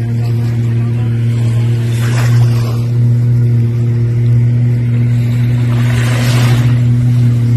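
Watercraft engine running at a steady pitch at speed, with the rush of water spray swelling twice, about two seconds in and again about six seconds in.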